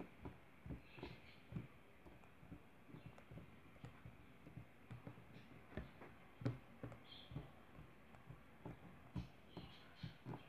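Faint, irregular soft taps and knocks of a small Littlest Pet Shop toy figure, its feet in modelling-clay shoes, being walked by hand across a tabletop.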